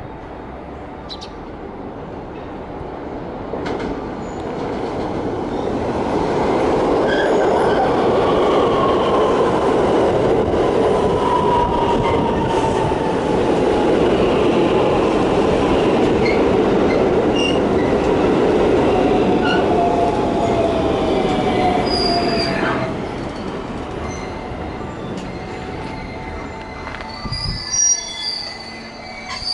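A JR West electric train runs along the tracks past the platform. Its rumble builds over the first several seconds, stays loud for about fifteen seconds with squealing wheels and high tones sliding downward, then fades away.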